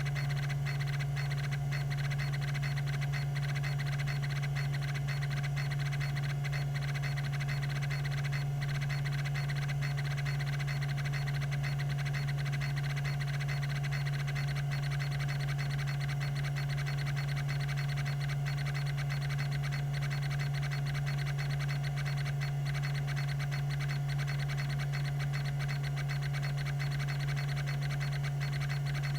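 Tandon TM362 20 MB MFM hard drive running, its two platters spinning at 3600 RPM with a steady low hum and fainter higher whine, with faint scattered ticks.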